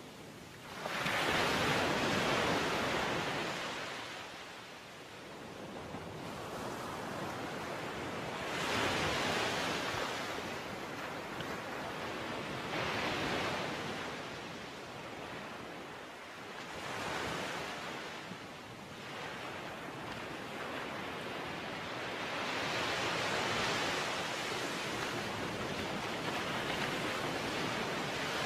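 Rushing water noise, surging and fading in uneven swells every few seconds.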